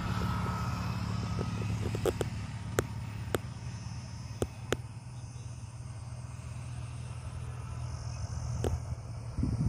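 A steady low engine drone, with a handful of short sharp clicks scattered through it.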